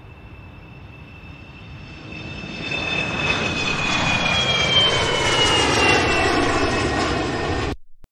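Jet airliner taking off: steady jet engine noise with a high whine that glides slowly down in pitch, growing much louder a few seconds in, then cutting off abruptly near the end.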